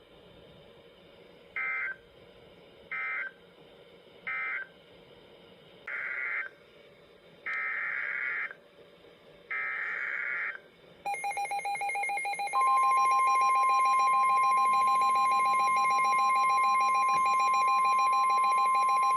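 Emergency Alert System tones between two weather warnings. First come three short bursts of SAME digital data (the end-of-message code), then three longer SAME header bursts. Rapid electronic pulsing beeps follow, and about a second and a half later a loud, steady single-pitch warning alarm tone joins them.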